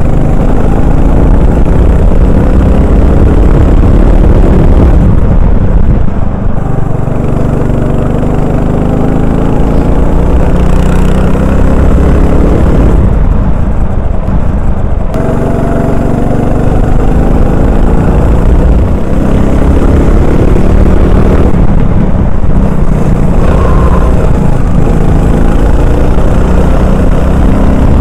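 Honda 390 cc single-cylinder four-stroke kart engine at racing speed, heard from the driver's seat. Its revs climb in long rising sweeps, dropping off briefly about five, thirteen and twenty-two seconds in before climbing again.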